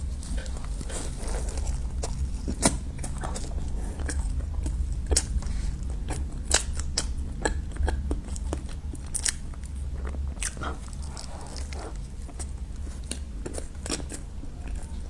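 Close-miked eating sounds: irregular sharp clicks and smacks of a mouth biting and chewing a creamy durian milk cup dessert, over a steady low hum.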